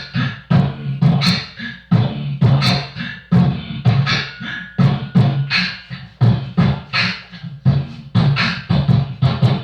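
Instrumental break of a rap song: a steady beat of punchy bass-heavy kicks and sharp snare-like hits, with no vocals.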